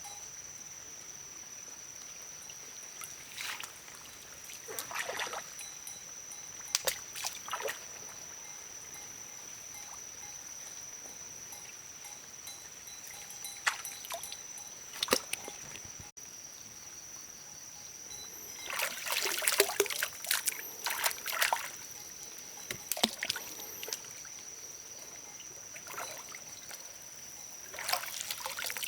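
Water sloshing and splashing in short scattered bursts, busiest about two-thirds of the way through, over a steady high-pitched whine.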